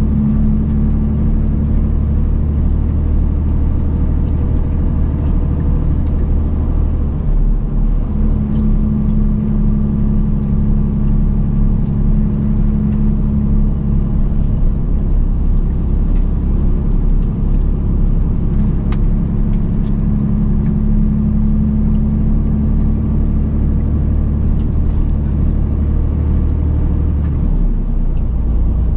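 Semi-truck's diesel engine running steadily on the road. The engine note shifts briefly about seven seconds in and again near the end.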